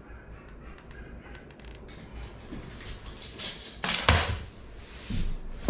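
A few short knocks and scrapes on a hardwood floor, the loudest about four seconds in with a dull thud, as a tape measure is picked up off the boards; before that only faint room noise.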